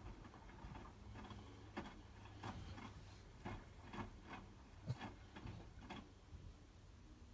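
Hotpoint WMFUG 942 washing machine running early in its wash, giving faint, irregular clicks and soft knocks about twice a second over a low steady hum.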